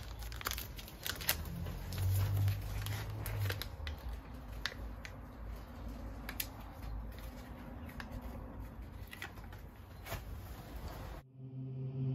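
Rustling and scattered light clicks as an alcohol cleaning wipe is handled and rubbed over a car's painted tailgate. Music cuts in abruptly near the end.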